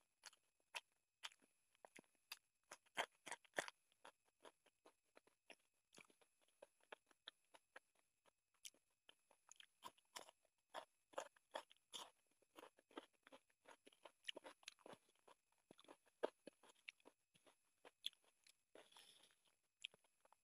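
Close-up eating sounds of chicken curry and rice being eaten by hand: wet chewing, lip smacks and mouth clicks in irregular quick runs, with a short hissy breath or slurp near the end.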